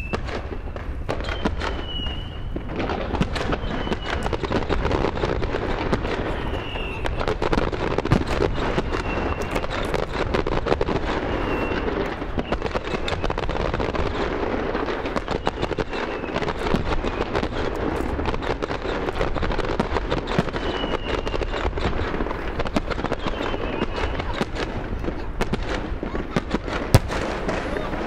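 Fireworks going off in quick succession: a dense, continuous crackling and popping of bursting shells with no pause.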